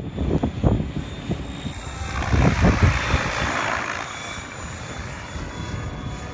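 Radio-controlled model helicopter flying past: a steady rotor and motor whir that swells about two seconds in, then eases as it moves away.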